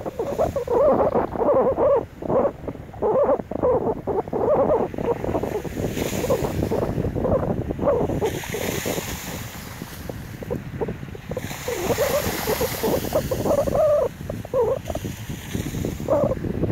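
Wind gusting on the microphone over the sea, with slushy, half-frozen seawater washing at the shore in stretches of soft hiss.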